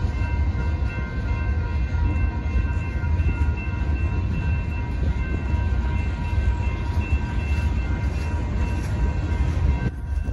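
Freight cars of a manifest train rolling through a grade crossing with a loud, steady low rumble, while the crossing's warning bells ring steadily. The bells stop just before the end.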